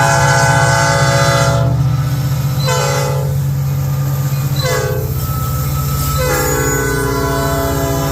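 Locomotive horn, a Nathan Airchime P5, sounding a long blast, two short blasts and another long blast over the steady low rumble of the passing train's engines.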